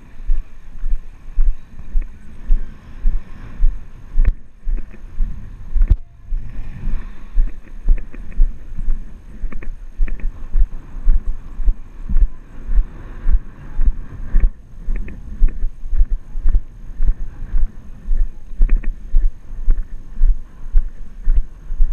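Footsteps on concrete carried through a body-worn action camera as a steady rhythm of low thuds, about two a second, with light wind on the microphone.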